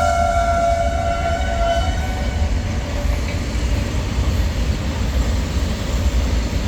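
Train horn sounding a long blast that fades out about two seconds in, over the steady low rumble of the running train.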